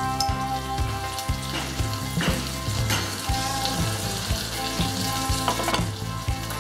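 Coconut oil sizzling as it melts and heats in a pan, a steady frying hiss, with instrumental background music under it.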